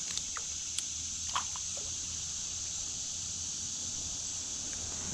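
Steady high-pitched chorus of insects, with a low steady rumble beneath and a few short clicks and brief chirps in the first second and a half.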